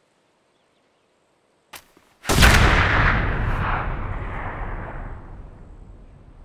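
A single gunshot, with a long echoing decay that dies away over several seconds. A short sharp click comes about half a second before it.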